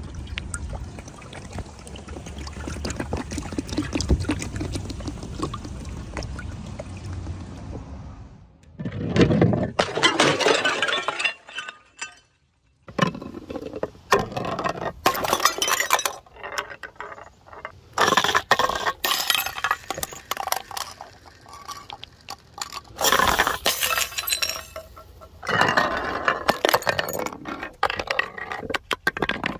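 Soda being poured from two plastic bottles into a large glass carboy, a steady running pour. After a cut, glass jars and bottles clink and clatter as they roll down stone-slab steps, with repeated sharp impacts and glass breaking.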